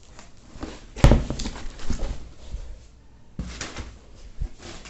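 A sharp knock about a second in, then scattered knocks and rustles as a shipping box and its packing are handled.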